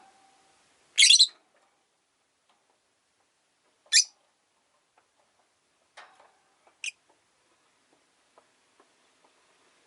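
Rosy-faced lovebird giving short, shrill chirps: a loud one about a second in, another about four seconds in, then two fainter ones around six and seven seconds.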